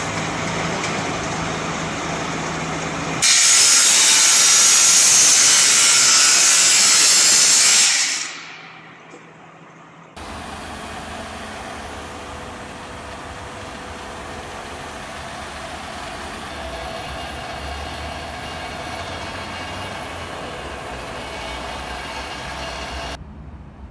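Angle grinder cutting through iron: a loud, bright, hissing cut that runs for about five seconds and then dies away. Quieter steady machine noise is heard before the cut and again afterwards.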